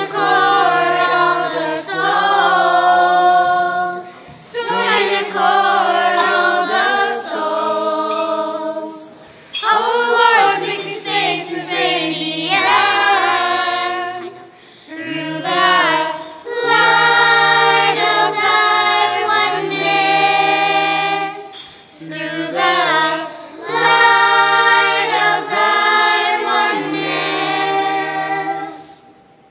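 Children's choir singing a song in phrases of about four to six seconds with short breaks between; the song ends shortly before the end.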